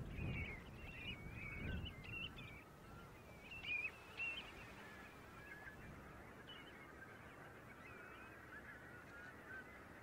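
A large flock of waterbirds calling: many overlapping short, wavering honks and chatter. The calling is loudest in the first four seconds and thins to fainter, steady background calling. A low rumble sits under the first two seconds.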